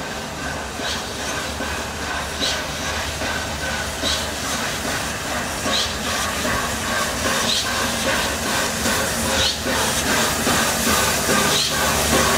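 Peppercorn A1 Pacific steam locomotive 60163 Tornado drifting slowly towards the listener with a steady hiss of steam, growing louder as it nears. A faint light click recurs about every one and a half to two seconds.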